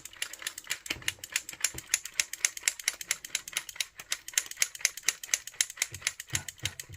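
Solari Cifra 6 flip-flap clock's flaps clicking over in quick succession, about eight clicks a second, as the display is run rapidly through the minutes to test the repaired hour change.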